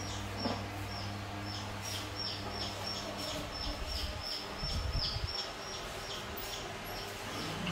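Rapid, regular high-pitched chirping, about three short chirps a second, each dropping slightly in pitch, over a steady low hum; a brief low rumble comes about five seconds in.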